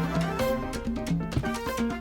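Background music: an upbeat Latin-style instrumental with a repeating bass line and percussion.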